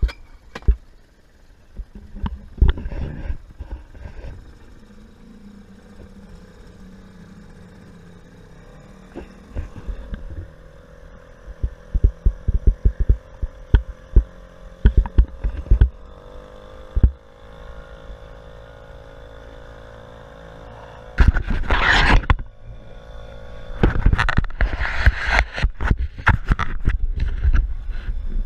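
Small Mercury outboard motor driving an inflatable dinghy, its drone rising in pitch about two-thirds of the way through. Frequent knocks and water slaps against the hull, with loud rushing noise near the end.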